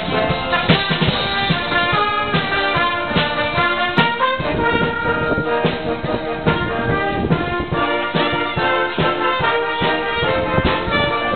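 A community band playing a tune live, with brass instruments (trombones and trumpets) carrying the melody over regular beats.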